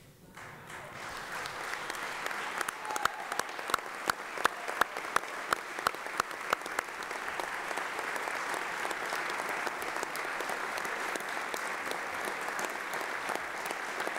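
A crowd applauding, building up within the first two seconds, with a run of loud single claps close by from about three to six and a half seconds in, then steady applause.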